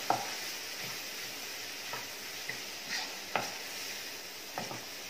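Chopped onion, capsicum and tomato frying in butter, sizzling steadily, while a wooden spatula stirs them and scrapes and knocks against the pan about once a second. The sharpest knock comes right at the start.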